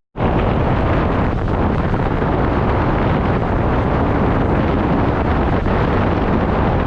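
Steady, loud wind rushing over the microphone while riding, mixed with the low rumble of travelling along a road. It starts after a split-second gap in the sound.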